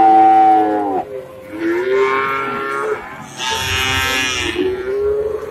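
Cows mooing: several long, drawn-out moos one after another, the first falling in pitch as it ends about a second in and the loudest coming a little past the middle.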